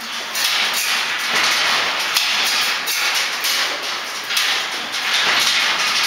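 Caged Asiatic black bears banging and rattling their metal cages: a loud, continuous clatter of knocks and clangs, the agitated din of the confined bears.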